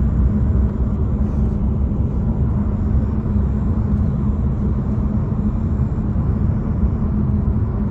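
Steady low road and engine rumble inside a 2024 Nissan Altima's cabin, with a steady buzzing rattle from behind a pillar that sets in when the engine runs at about 2,000 rpm.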